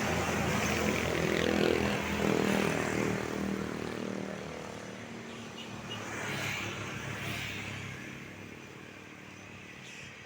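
A road vehicle passes close by, its engine note rising in loudness and then dropping in pitch as it goes. A second vehicle passes more faintly about six to seven seconds in, then the sound fades.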